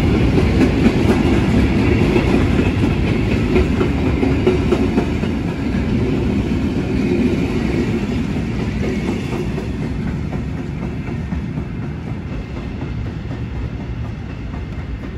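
Freight train of tank-container and flat wagons rolling past, its wheels clattering steadily over the rails; the sound slowly dies away as the end of the train goes by.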